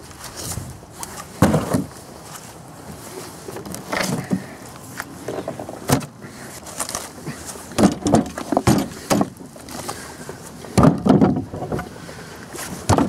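Split firewood being handled from a stack: pieces knocking against one another and being set down, a series of irregular wooden clunks a second or two apart, bunched more closely around the middle and again about two-thirds in.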